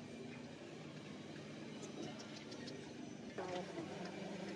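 Steady workshop background noise with a few light clicks, and a man's voice starting near the end.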